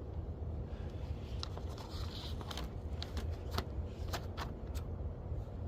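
Light clicks and scrapes of kettle grill parts being handled during assembly: a string of sharp ticks through the middle seconds, over a steady low rumble.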